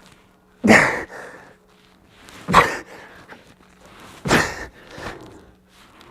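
A man breathing hard, out of breath from exertion: three loud gasping breaths about two seconds apart.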